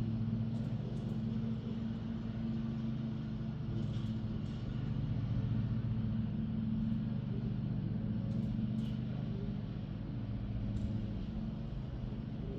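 A steady low motor hum, like an engine running, with a few faint sharp clicks.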